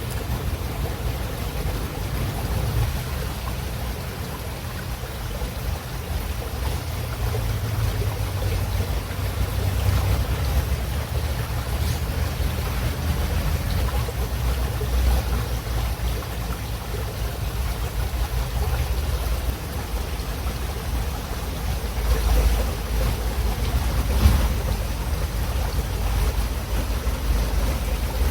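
River water running steadily, with a deep low rumble under an even rushing hiss.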